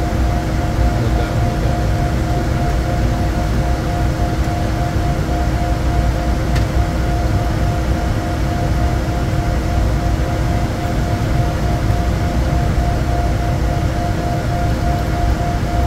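Steady cockpit noise of a Bombardier Challenger 350 twin-turbofan business jet: a low rush of air and engine, with a few thin steady tones over it, one of them pulsing evenly.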